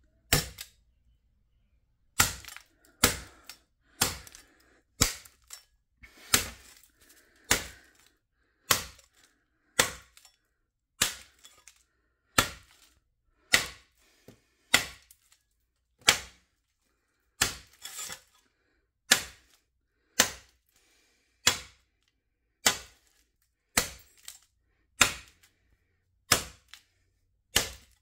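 Ice breaker stabbing down again and again into an LG Nexus smartphone, breaking its glass and casing: sharp impacts about once a second, some two dozen in all, after a single hit and a short pause at the start.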